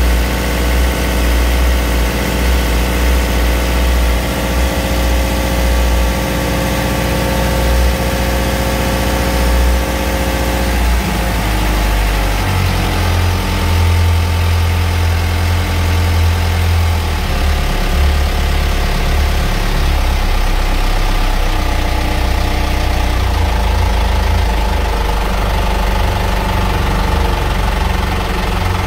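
Yanmar 4JH3 87-horsepower turbo-diesel marine engine running steadily, heard close up in the open engine compartment.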